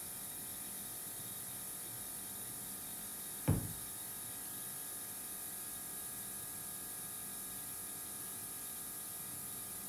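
Steady faint hiss with a single sharp knock about three and a half seconds in, as an object is set down on the wooden worktable while glue is brushed onto a mitred frame moulding.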